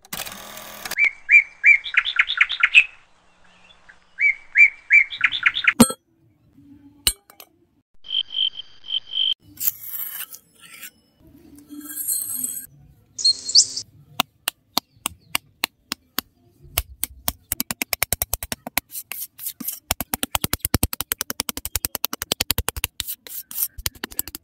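Two short runs of quick bird chirps near the start, then scattered short sounds, and from about halfway a long series of sharp clicks that come faster and closer together over the last six seconds.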